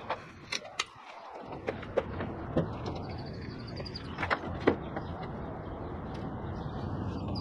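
Scattered knocks and clunks as a window air-conditioner unit in a homemade plywood frame is handled and carried, the loudest two close together about four and a half seconds in.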